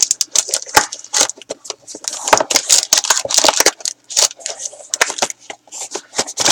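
Packaging of a trading-card box being opened and handled: quick, irregular crackling and crinkling, with clicks and rustles of plastic wrap and cardboard.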